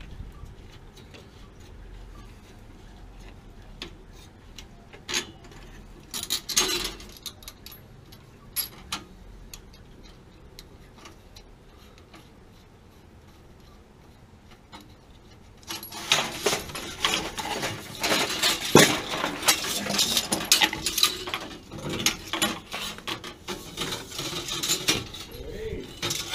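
A wrench and metal gas-line fittings clinking and knocking as the gas connector is worked at a water heater's gas control valve. There are a few scattered clicks at first, then a dense run of metallic clinks and knocks from about halfway through.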